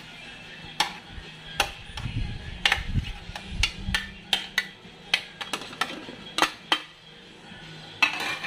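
A metal spoon clinking and scraping against a ceramic plate and the rim of a steel pot, as sliced eggplant and okra are pushed off the plate into the pot. There are a dozen or more sharp clinks at uneven intervals.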